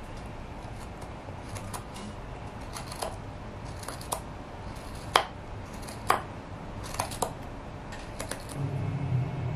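Hook knife cutting into birch wood, hollowing out the bowl of a wooden cup: a run of short scraping cuts, about one a second, with a few sharper clicks in the middle. A low rumble comes in near the end.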